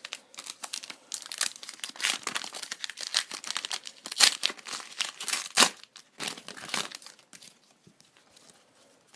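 Hockey card pack's wrapper crinkling and tearing as it is ripped open by hand: a dense run of crackles that stops a second or two before the end.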